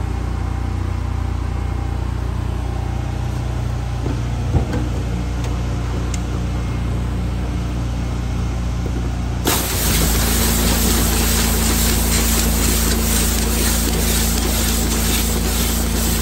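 A pressure washer's engine runs steadily. About nine and a half seconds in, the gun is triggered and high-pressure water hisses loudly inside a lidded trash can, sprayed through a cleaning head on the lid.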